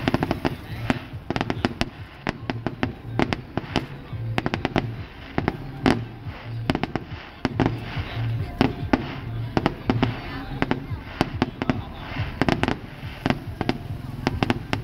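Fireworks going off: a dense, irregular string of sharp bangs and crackles, many per second.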